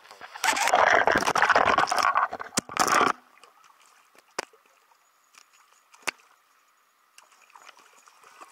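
Hooked rainbow trout thrashing as it is hauled up through an ice-fishing hole: loud splashing and churning water for about three seconds, picked up by a camera at the waterline. It then gives way to scattered clicks and small splashes.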